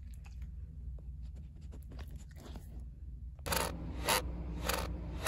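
Wooden rocking chair rocking, its rockers scraping or creaking in an even rhythm of about one stroke every 0.6 seconds, starting a little over three seconds in. Before that, only faint rustling and small clicks.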